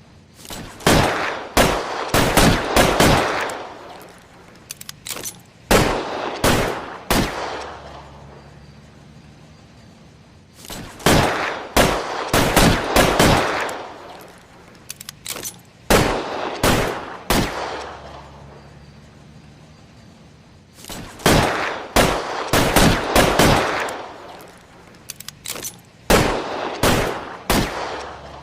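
Colt Detective Special .38 Special snub-nose revolver fired in quick strings of several shots, each shot ringing off with echo. The strings are separated by pauses of a few seconds, and a few lighter clicks fall in some of the pauses.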